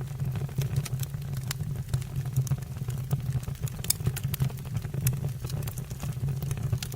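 Wood fire crackling in a fireplace: irregular sharp pops and snaps of burning logs over a steady low rumble.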